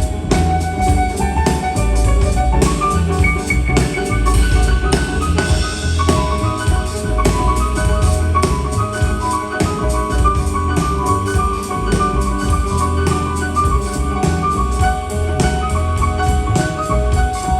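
Jazz piano trio playing: piano over a drum kit with a deep low end, steady and continuous.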